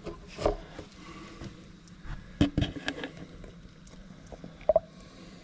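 A few short knocks and clatters of hand work on a tractor: one about half a second in, a cluster about two and a half seconds in, and a brief ringing clink near the end.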